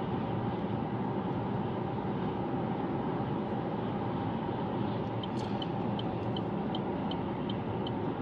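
Steady road and engine noise inside a car cabin at highway speed. About five seconds in, the turn-signal indicator starts ticking, about three ticks a second, as the car signals to pull off the road.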